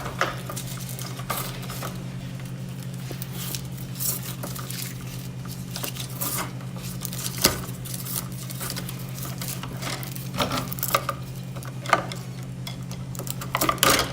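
Electrical cable being stripped by hand: scattered rustles, clicks and small clinks as the slit outer jacket is pulled back from the wires. A steady low hum lies under it throughout.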